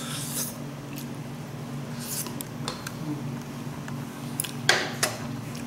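Light clicks and clinks of metal tongs and chopsticks against bowls and the pot, a few scattered strokes with the sharpest near the end, over a steady low hum.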